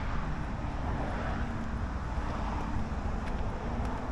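Steady low rumble of wind on the microphone, with road-vehicle noise underneath.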